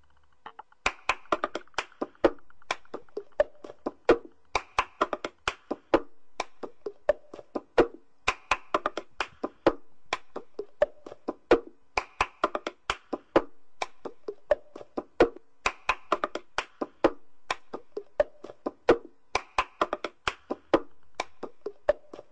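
Cup-game rhythm: hand claps and plastic cups tapped and knocked on a surface in quick, sharp strokes, the same pattern repeating about every four seconds.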